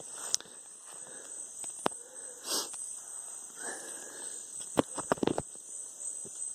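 Night-time rainforest insects chirring in a steady, high-pitched drone. Scattered sharp clicks and taps come through it, the loudest cluster about five seconds in.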